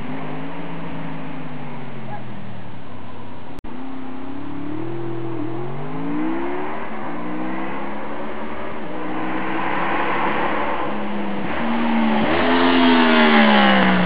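Honda VFR750F's V4 engine breathing through a complete RC30 racing exhaust, revving up and falling back several times. The last rise, near the end, is the loudest and highest. The sound cuts out for an instant about three and a half seconds in.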